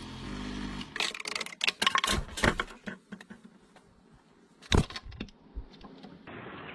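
Small metal bottle caps clinking on a hard surface: a quick run of sharp clicks, then a single louder click later on.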